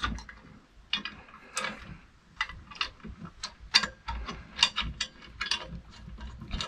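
Stainless-steel plates and rods of a motor housing frame clinking and knocking as they are handled and fitted by hand: a string of short, irregularly spaced metal clicks and knocks.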